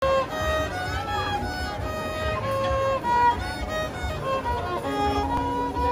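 Solo violin played by a street busker: a melody of held notes with slides between some of them.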